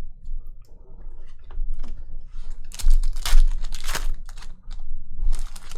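Trading cards and their packaging being handled: crinkling and rustling with small clicks, loudest in a burst lasting about a second just past the middle and a shorter one near the end.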